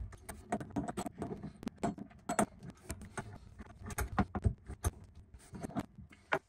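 Metal wrench clinking and scraping on the supply-line nuts at the chrome shutoff valves as the braided lines are snugged up: irregular metallic clicks and taps.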